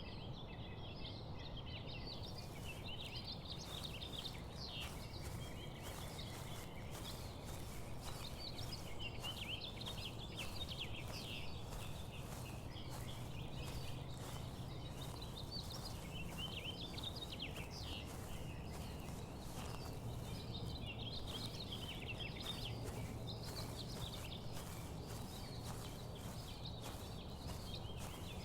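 Wild birds singing and chirping over a steady, even background rush.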